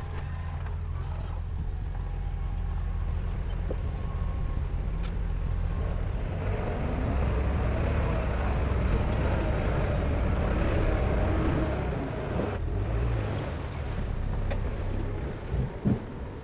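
Heavy diesel engine of earth-moving equipment running steadily. It grows louder and rougher for several seconds in the middle, then settles, with a couple of short knocks near the end.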